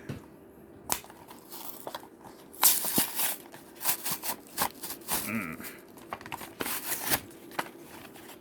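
Yu-Gi-Oh! card blister pack being torn open by hand: irregular crinkling and crackling of the plastic packaging with ripping sounds, loudest about three seconds in.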